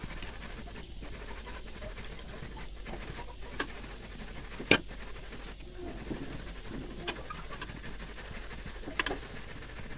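Metal ladle and spatula scraping and clicking against an aluminium wok of freshly rendered coconut oil, with a sharp clack about halfway through, over a steady hiss from the pan. The coconut milk has cooked down to clear oil with browned curds (blondo).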